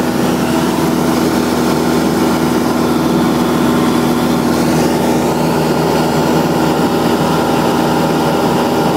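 Single-engine light aircraft's engine and propeller heard from inside the cabin in cruising flight: a steady, loud drone with wind noise.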